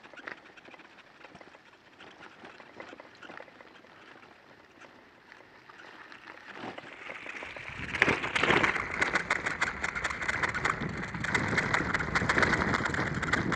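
Loaded touring bicycle rolling on a graded gravel road: faint scattered crunches and clicks at first, then from about eight seconds in a much louder, dense crackle of tyres on loose gravel over a steady low rumble.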